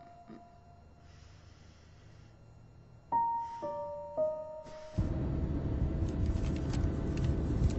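Sparse piano notes of a sad background score: a three-note phrase fades out, and about three seconds in another three notes are struck and ring on. About five seconds in a louder, dense low rumble with scattered clicks comes in under the last note.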